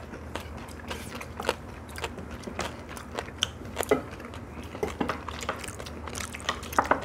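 Several people eating at a table: chewing, with scattered light clicks and taps of chopsticks and spoons against bowls at irregular moments.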